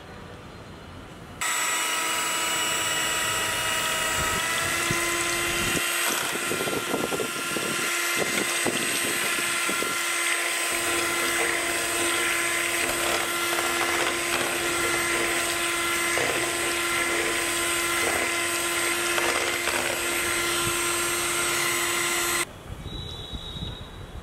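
Electric kitchen blender motor running steadily, switched on about a second in and cutting off suddenly near the end, about twenty seconds in all.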